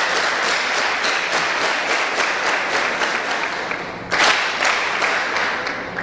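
Deputies in a parliamentary chamber applauding: many hands clapping steadily, with a fresh surge of clapping about four seconds in.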